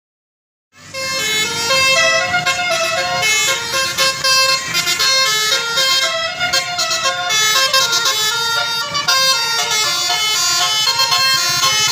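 Bus telolet horn, a Basuri multi-trumpet air horn, playing a quick melody of shifting notes. It starts suddenly about a second in, over a low rumble.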